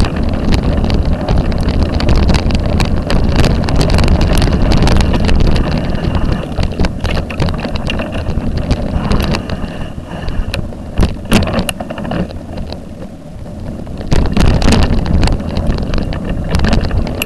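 Wind buffeting the microphone of a camera moving along a bumpy dirt path, with a constant rumble and many sharp rattling clicks from the jolting mount. It eases off about ten seconds in, then picks up again about four seconds later.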